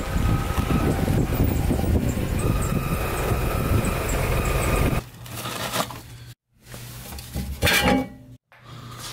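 A car's engine running steadily as the car rolls slowly forward. About five seconds in this gives way to quieter metallic clinks and handling noises, broken by two brief silences.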